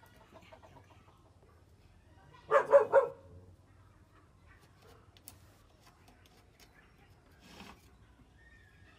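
A dog barking three times in quick succession, about two and a half seconds in.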